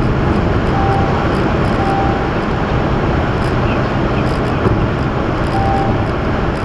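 Steady wind and tyre noise inside an Audi A8's cabin while it is driven at speed on the highway.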